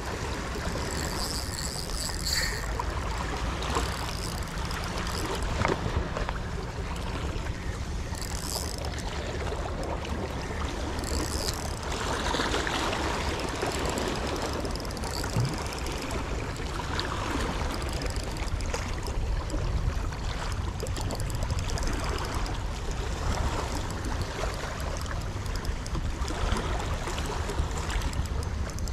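Seawater lapping and splashing, with a steady low rumble of wind on the microphone and a few brief hissing splashes.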